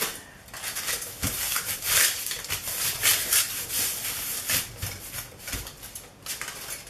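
Crumpled aluminium foil crackling and rustling in irregular bursts as hands press and rub it down onto a sheet of paper.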